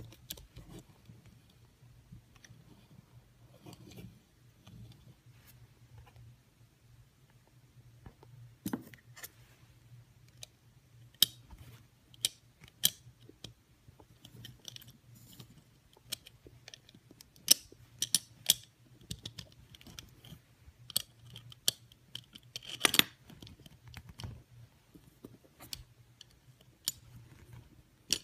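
Small sharp clicks and taps of a custom Hot Wheels Plymouth Road Runner die-cast car being handled, its little opening hood flipped up and pressed shut by a fingertip. The clicks are sparse at first and come thick and irregular from about nine seconds in, over a faint low hum.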